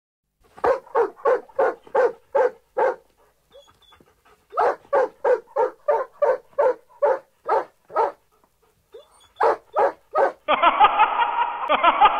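A cartoon dog barking in quick runs of short barks, about three a second, with two pauses between runs. Near the end the barking gives way to a denser, continuous sound.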